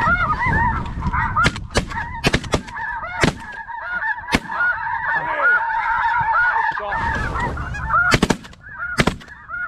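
Many geese calling in a dense, overlapping chorus of honks. Sharp shotgun blasts cut through it, the loudest being a quick pair and then one more near the end.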